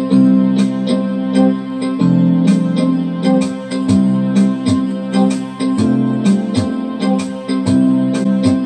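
Instrumental keyboard backing music, an electric-piano sound playing held chords with a steady beat of short notes about twice a second.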